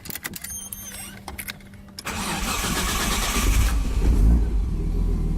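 Turbocharged Nissan RB25 straight-six being started for the first time after its old coil packs were replaced with split-fire coil packs. A few clicks and a faint steady hum come first. About two seconds in, the starter cranks for roughly a second and a half, then the engine catches and settles into a steady idle.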